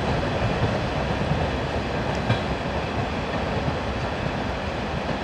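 Train hauled by a 2M62M diesel locomotive rolling past at steady speed, its wheels clattering over the rail joints, growing slightly fainter.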